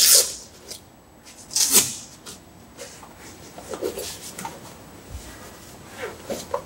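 A roll-out vehicle awning's fabric cover being handled and opened: two short rasping rips about a second and a half apart, then rustling and light knocks.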